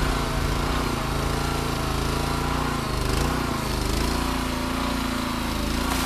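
Small single-cylinder 6.5 hp Briggs & Stratton gas engine running, driving the hydraulic pump of a homemade mini excavator as its bucket digs. It runs steadily, its pitch wavering slightly.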